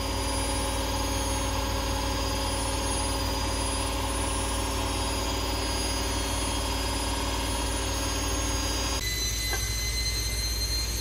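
Steady electric hum of a kitchen appliance's motor: a drone made of several steady tones over a low hum. About nine seconds in it changes abruptly to a thinner hum with a high whine.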